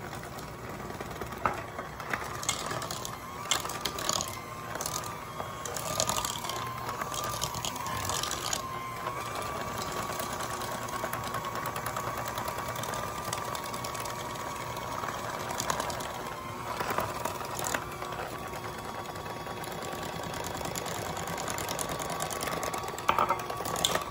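Electric hand mixer running steadily, its beaters whirring through cake batter with a slightly wavering motor whine. A few sharp clicks and knocks come through at irregular moments.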